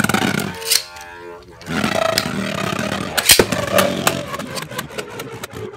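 Two Beyblade Burst tops, Strike Valtryek V3 and Noctemis N3, spinning in a plastic Battle Tower stadium. Their tips make a steady whirring scrape on the plastic floor, with many small clicks and a sharp knock about three and a half seconds in.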